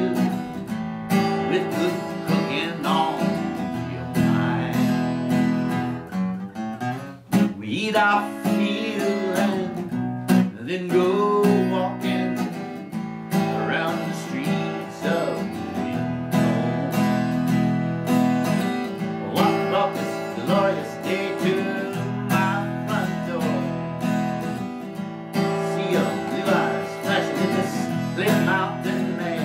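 Acoustic guitar music: strummed chords with a melody line moving over them.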